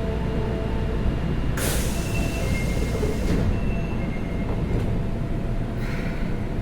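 Osaka Metro 22 series subway train at the platform working its doors: a sudden hiss of air about one and a half seconds in, then thin high chime tones twice, from the door chime that sounds abnormal on this car, and another short hiss near the end, over a steady low rumble from the train.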